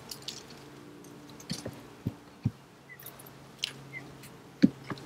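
Beehive top cover being handled and set down on the wooden hive boxes: a few scattered knocks and taps, the sharpest one near the end.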